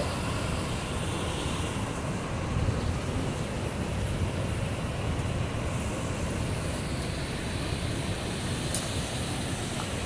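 A waterfall's water rushing over rocks: a steady, even noise with a deep low rumble and no breaks.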